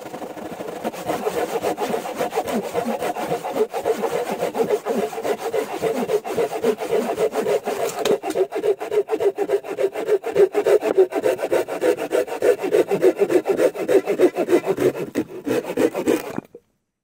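Hand saws cutting through logs in rapid, repeated back-and-forth strokes. The sawing stops suddenly near the end.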